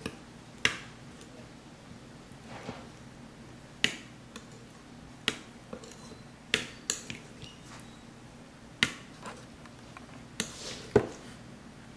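Metal spoon clinking against the side of a white bowl while stirring thick tomato sauce: about ten sharp, irregularly spaced clinks, the loudest near the end, with a few softer scrapes in between.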